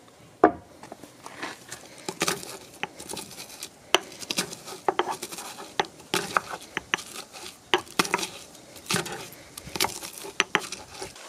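Pestle knocking and grinding in a mortar, crushing garlic: a run of irregular sharp knocks.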